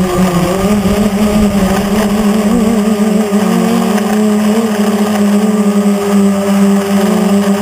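Quadcopter's electric motors and propellers buzzing steadily in flight, heard from a camera on the frame, the pitch wavering slightly as the throttle shifts. A low rumble under it dies away about two and a half seconds in.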